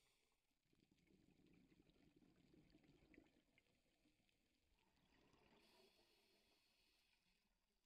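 Near silence, with only a faint, muffled underwater hiss.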